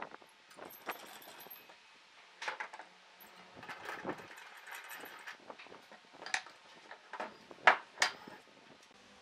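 Irregular light clinks and knocks of small hard objects being handled, with a brief scrape in the middle and two louder knocks close together near the end.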